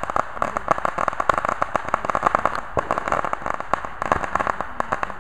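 Ground fountain firework spraying sparks and crackling: a dense, irregular stream of rapid sharp pops from crackling stars.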